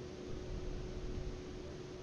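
Quiet room tone: a steady faint hiss with a constant low hum and no distinct event.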